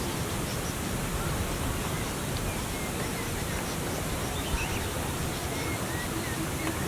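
Steady hiss of outdoor background noise with a few faint, short bird chirps scattered through it.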